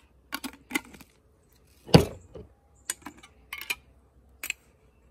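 Glass spice jars, a metal spoon and a stainless steel tray clinking and tapping as spices are handled: scattered light clicks, with one heavier knock about two seconds in.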